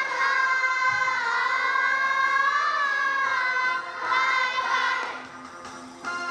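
A group of young girls singing together in unison, holding long notes; the singing fades out about five seconds in.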